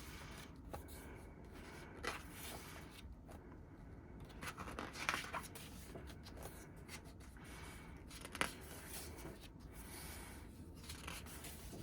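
Faint rustling and soft ticks of glossy paper pages as a K-pop album photobook is leafed through by hand, with one sharper click about eight seconds in.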